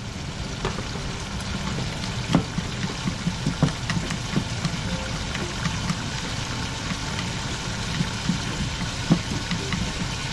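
A frying pan of sliced onions and canned mackerel in its liquid cooking with a steady sizzling hiss, with irregular clicks of wooden chopsticks stirring and tapping against the pan.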